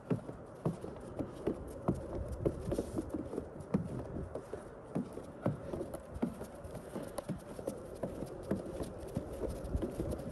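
Footsteps in fresh snow on a wooden boardwalk, at a steady walking pace of a little under two steps a second.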